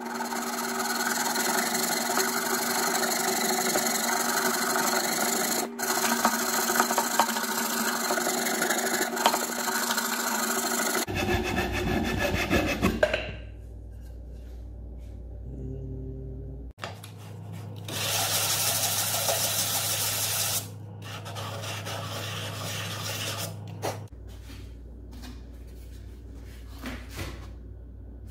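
Hand saw cutting through a 1.5-inch wooden dowel in steady back-and-forth strokes for about eleven seconds until the cut is through. A second, shorter stretch of rasping on wood comes about eighteen seconds in and lasts a couple of seconds.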